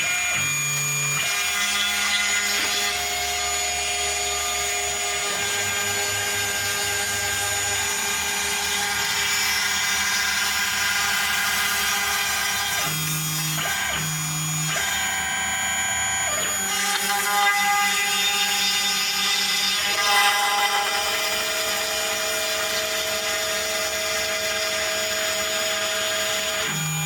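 Homemade CNC router running a cut: the spindle's steady high whine and cutting hiss, with the stepper motors humming in tones that jump to a new pitch every second or few as each move changes speed and direction.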